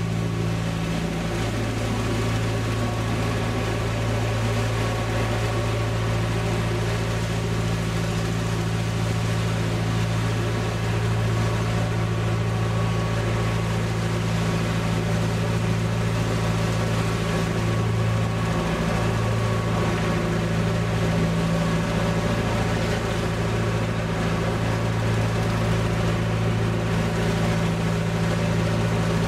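Narrowboat's diesel engine running steadily, an even low drone that holds the same speed throughout.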